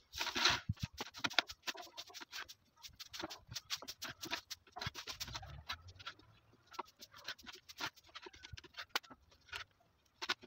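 Kitchen knife cutting raw chicken thighs on a wooden cutting board: a run of quick, uneven knocks and taps of the blade against the board.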